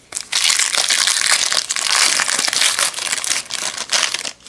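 Foil wrapper of a 2018 Topps Chrome baseball card pack crinkling and crackling loudly as it is opened by hand, easing off near the end.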